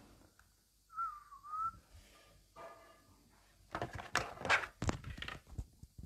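A short wavering whistle about a second in, dipping and rising back, then about two seconds of rustling and knocks from a handheld phone and its earphone microphone being moved about.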